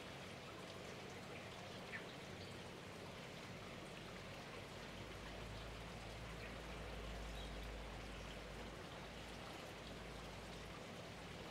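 Faint steady hiss of background ambience with a few light ticks, rain-like in character; a low rumble rises under it in the middle and fades near the end.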